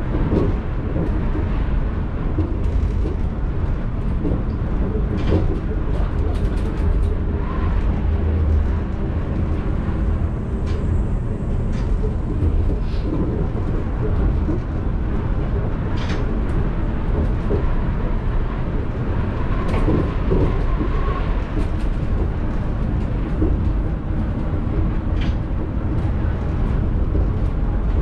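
Running noise inside a Mitsubishi 1000 Series suspended monorail car travelling between stations: a steady low rumble with a few light clicks and knocks scattered through it.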